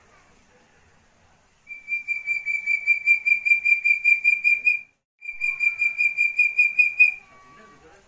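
Young Javan hill partridge (puyuh gonggong) calling: two runs of rapid, even whistled notes, about five a second, with a short break between them, and a few lower notes near the end.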